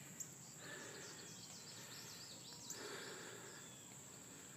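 Quiet outdoor ambience: a steady high-pitched insect drone, with faint bird chirps in the middle and a couple of small clicks.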